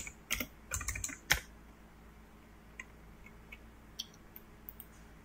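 Computer keyboard keystrokes: a quick run of key presses in the first second and a half, ending on one louder stroke, then a few scattered faint clicks.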